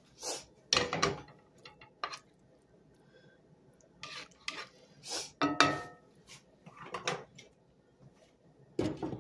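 Dishes and cutlery clinking and knocking in a string of short, separate taps, one around the middle ringing briefly.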